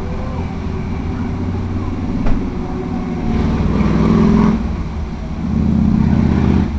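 Electric motor and propeller of a Sky Surfer model glider running steadily in flight, a low droning hum that swells louder twice.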